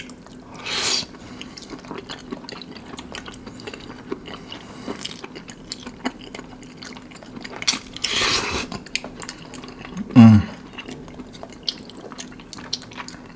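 Close-up mukbang eating sounds: saucy instant noodles slurped loudly about a second in and again about eight seconds in, with wet chewing and small clicks in between. A short, loud, low hum-like sound comes about ten seconds in.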